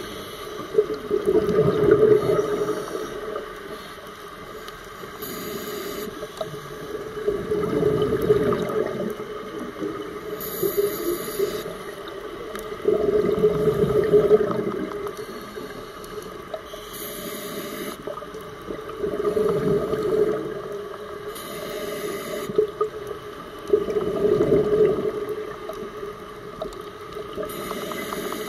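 Scuba diver breathing through a regulator: a bubbling rush of exhaled bubbles about every five to six seconds, each followed by a short hiss of inhalation, five breaths in all.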